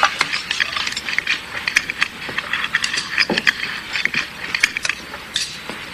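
Cutlery and china clinking at a dinner table: a steady run of small, irregular clicks and clinks as dishes and utensils are handled.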